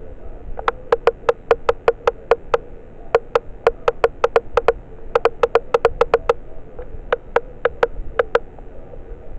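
Rapid sharp taps or knocks, about four a second, in four quick runs with short pauses between them, each tap with a brief hollow ring.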